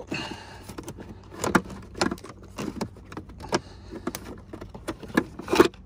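A hand prying a plastic AC vent out of a Lexus LS430's center console trim: scattered plastic clicks and knocks, the loudest near the end as the vent pops free.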